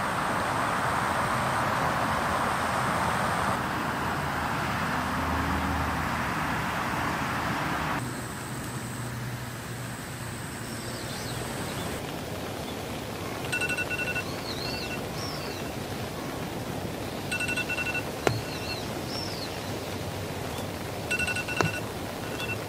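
Steady heavy rain falling for about the first eight seconds, cutting off abruptly. Then a quieter outdoor background with birds chirping, short runs of quick high peeps three times, and a couple of light knocks.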